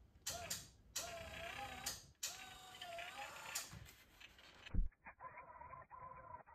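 Faint creaking and squeaking from thread being wrapped around a fishing rod blank over a guide foot: wavering squeaks for the first few seconds, a short low knock a little past the middle, then a steadier, higher squeak.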